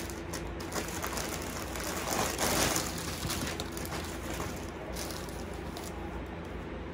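Rustling and soft handling noises from clothes and paper being moved about by hand, swelling to a louder rustle about two to three seconds in, over a low steady hum.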